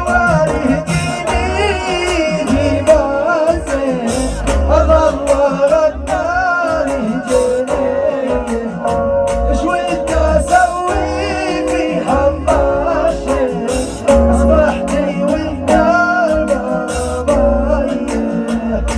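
Hejini, a Bedouin Arabic song: a sung melody with winding ornaments over instrumental backing and a heavy, regular low beat.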